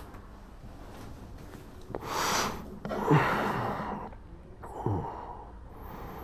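A person gasping and breathing hard: a sharp breathy inhale about two seconds in, then a louder voiced gasp falling in pitch, and a shorter falling gasp near the end.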